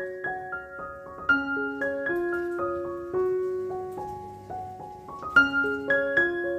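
Background piano music: a melody of single ringing notes over held chords.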